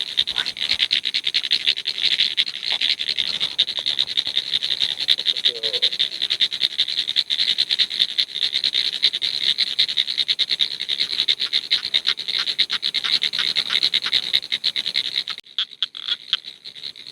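Dense chorus of frogs calling, a rapid, continuous pulsing; it stops abruptly a little before the end.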